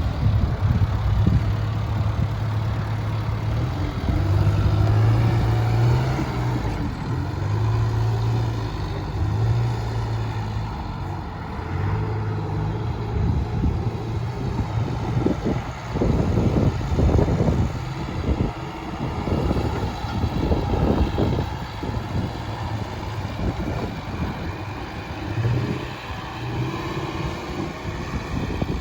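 John Deere 310SK backhoe loader's diesel engine running steadily, its note rising and falling a little. Several thumps come in a cluster from about halfway to three quarters through.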